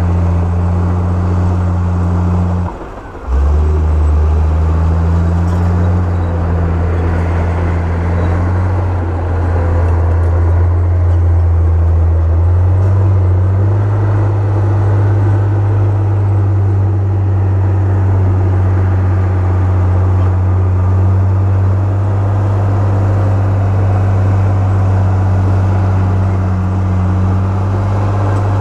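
Komatsu crawler bulldozer's diesel engine running under load as it pushes rock and soil, a steady low drone. It cuts out briefly about three seconds in, and its note rises a little about twelve seconds in.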